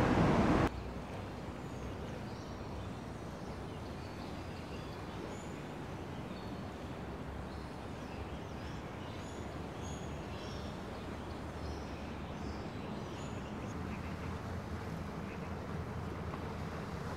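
Small birds chirping in short, high, scattered calls over a steady low outdoor hum. A louder rush of noise cuts off abruptly less than a second in.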